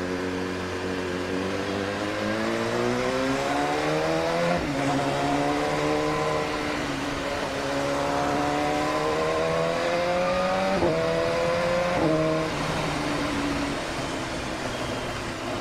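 BMW S1000RR's 1000 cc engine pulling through the gears as the bike accelerates. Its pitch climbs steadily, drops at an upshift about four and a half seconds in, and climbs again. It drops twice more in quick upshifts about eleven and twelve seconds in, then runs on at a lower pitch.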